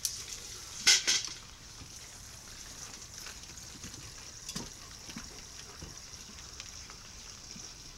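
Irish setter puppies eating together from a stainless steel feeding pan: steady wet smacking and lapping with small clicks, and a couple of sharp clanks about a second in.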